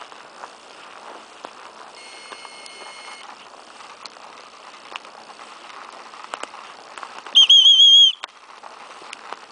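A short, loud, warbling trill on a dog whistle near the end, over the steady rustle and crackle of footsteps through forest undergrowth. A fainter, steady whistle-like tone sounds briefly about two seconds in.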